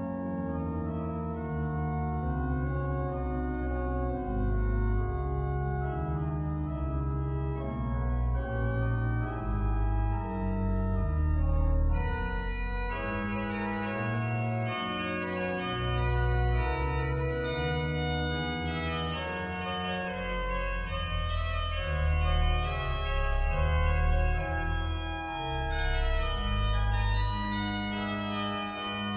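Pipe organ music: several lines of steady held notes moving together over a deep bass line.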